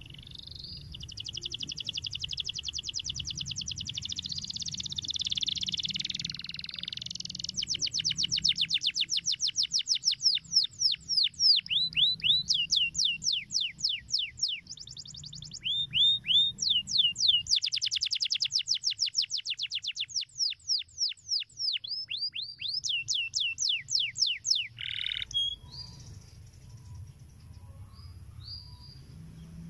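Domestic canary singing a long song of fast trills: rapid rows of short, falling notes with brief breaks, stopping about 25 seconds in.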